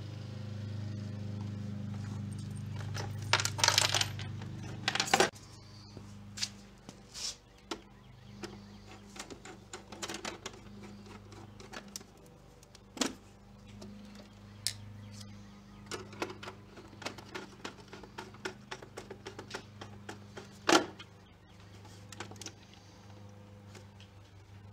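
Metal screws and brackets clinking and a screwdriver clicking against a plastic scooter top case as it is screwed onto its luggage rack, with a loud clatter about three to five seconds in and scattered single clicks after. A steady low hum runs underneath.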